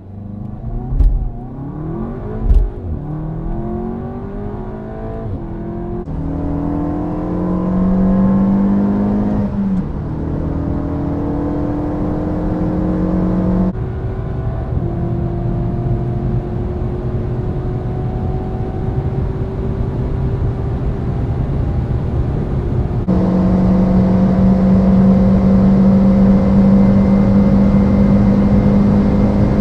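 Turbocharged four-cylinder engines at full-throttle acceleration, heard from inside the cabin. First the Seat Leon Cupra 280 launches and pulls hard through the gears, its pitch climbing and dropping back at each upshift. About three-quarters through, the sound switches to the Renault Mégane RS at high speed in a tall gear, its pitch rising slowly.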